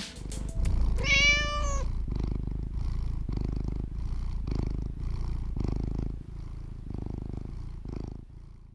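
A domestic cat meows once, briefly, about a second in, then purrs close to the microphone: a low rumble that pulses regularly and fades away near the end.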